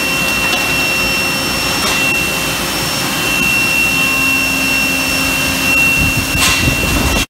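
Yoder W-20 tube mill running in production: a loud, steady industrial machine noise with a constant high-pitched whine and a few faint clicks. It cuts off suddenly at the end.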